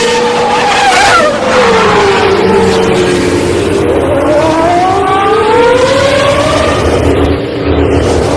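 Formula 1 car engine at high revs: its pitch drops steeply about a second in, then climbs again over several seconds as the car accelerates.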